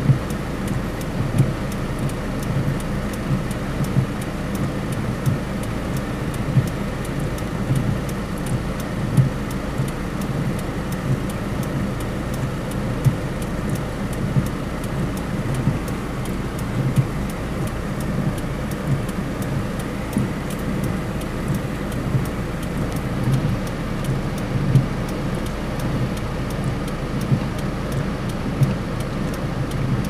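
Car cabin noise while driving on a wet road in rain: the engine and tyres run steadily, and a short knock comes every second or two.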